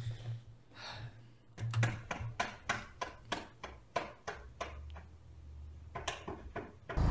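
Computer keyboard keys clicking in a quick, irregular run of taps, then a faint low hum. A loud low rumble starts right at the end.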